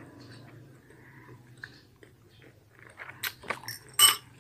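Quiet chewing of fried pempek fish cake. From about three seconds in come a few sharp clicks, then a louder short clink near the end as a metal spoon goes into the glass bowl of sauce.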